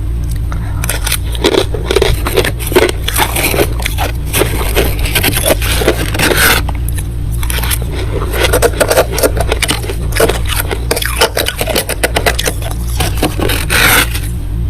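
Freezer frost being scraped: repeated rough, crackly scraping strokes, with a short lull about seven seconds in, over a steady low hum.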